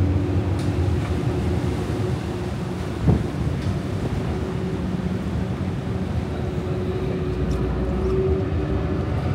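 Car ferry's engines running steadily at the berth: a low rumble with a steady hum over it, and one short knock about three seconds in.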